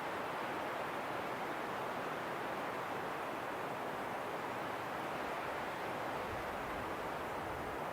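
Wind blowing in a steady, even rush, with no gusts or breaks.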